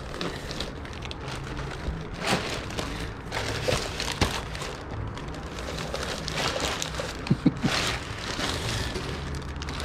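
Rustling and crinkling of bags and small objects being handled and sorted, with a few sharp clicks of items knocking together.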